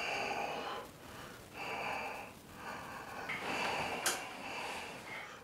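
A man breathing heavily in about four loud, rasping breaths roughly a second apart, panting from fright on waking from a nightmare. There is a single sharp click about four seconds in.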